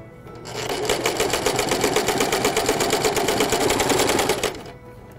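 Electric domestic sewing machine stitching along the edge of fabric and bias tape, a fast, even run of needle strokes. It starts about half a second in, runs steadily, and stops near the end.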